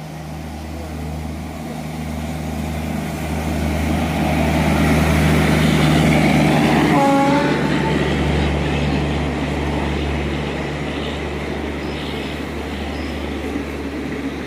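Passenger express behind an electric locomotive running through a station: a steady electric hum and rail noise that builds to a peak as the locomotive passes about halfway through, with a short horn note, then the coaches rumbling by on the track.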